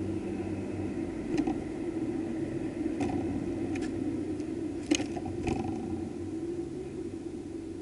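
A great tit on the seed-covered floor of a feeder, its feet and beak making a handful of short, sharp clicks and taps, the loudest about five seconds in. A steady low hum runs underneath.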